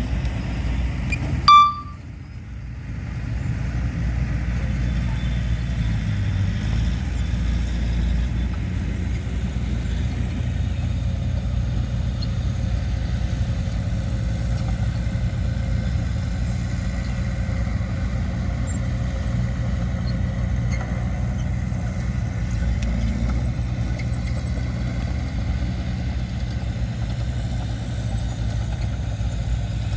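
Diesel engines of heavy earthmoving machinery running steadily with a low rumble. About a second and a half in, a short, loud, high-pitched blip cuts in, followed by a brief drop in level.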